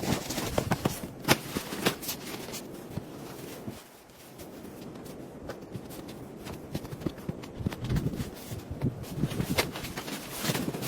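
Irregular clicks, knocks and crunches of someone moving about and handling things, with a quieter lull about four seconds in.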